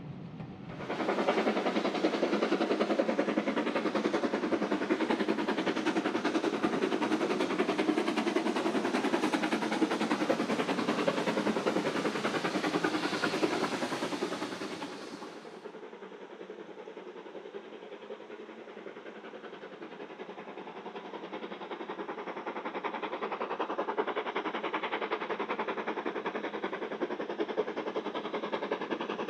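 Steam locomotive working hard with a train, its exhaust beats coming rapidly over the running gear. About halfway through the sound drops suddenly to a quieter train in the distance, which grows louder toward the end.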